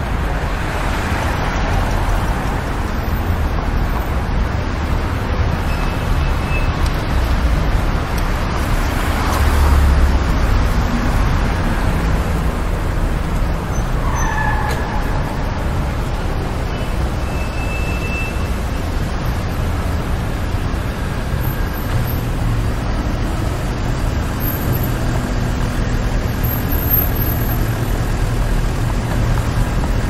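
Steady city road traffic: cars and heavier vehicles passing with a continuous engine and tyre rumble. The traffic swells louder as vehicles pass, about a second in and again around ten seconds.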